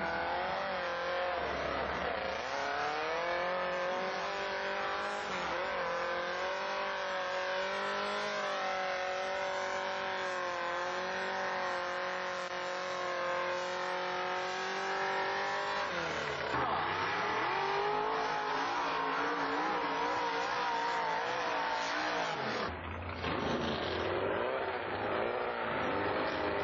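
Off-road buggy engine running hard at high revs, its pitch rising and falling with the throttle. The revs drop and climb back about two-thirds of the way through. Near the end the sound changes abruptly to another engine running at speed.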